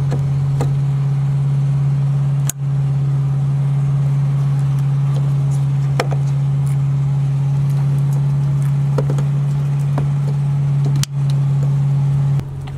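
A steady low hum throughout, with a few light clicks as the fuel line and electrical connector are pushed back onto the top of the fuel pump module.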